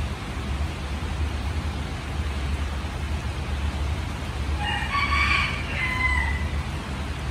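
Steady rain falling, with a single drawn-out bird call rising over it about five seconds in and lasting under two seconds.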